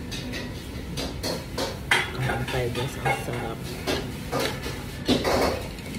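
Ramen spoon knocking and scraping against a ramen bowl as broth is scooped up, several short clinks, the loudest about two seconds in and about five seconds in.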